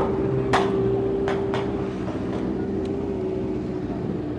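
Sport motorcycles idling with a steady engine hum, broken by a few sharp clicks, the loudest about half a second in.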